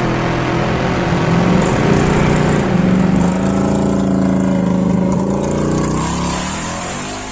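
Dune buggy engine running steadily, with a rough mechanical note, fading down near the end.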